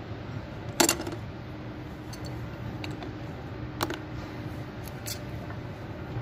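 Metal hand tools clinking: an adjustable wrench is picked up off a metal checker-plate bench and fitted onto the nut on a chain hoist's cover. A sharp clank about a second in, then two softer clinks near four and five seconds, over a steady low hum.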